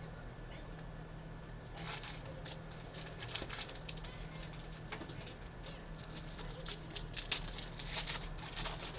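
Trading cards being handled: quick, irregular rustles and soft clicks of cards being slid and flipped through, over a steady low hum.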